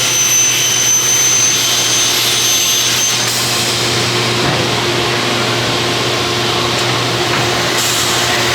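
Automated CNC chop saw for aluminium running with its dust collection: a loud, steady rush of motor and extraction air. The hiss grows brighter about three seconds in and again near the end.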